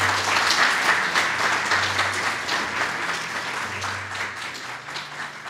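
Audience applauding, the clapping gradually dying away.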